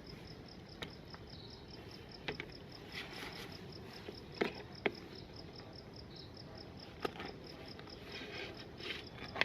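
An insect chirping steadily and faintly, about five even pulses a second, with a few scattered light clicks and knocks.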